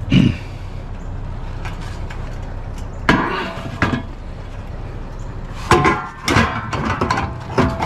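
Scrap pieces being handled and dropped: a sharp knock at the start, a cluster of clanks about three seconds in and another near the end, some with a short ring, over a steady low hum.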